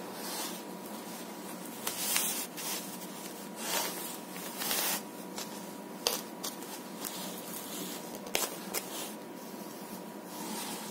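Hands rubbing and smoothing a sheet of paper on a table, in short rustling strokes with a couple of light taps.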